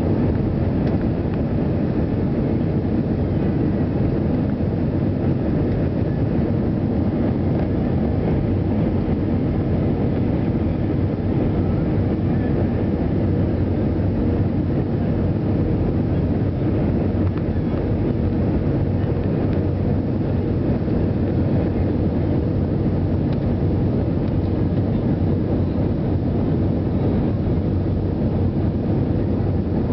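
Steady cabin noise inside an Airbus A320 descending on approach: a constant low drone of the jet engines and airflow, heard from a window seat over the wing.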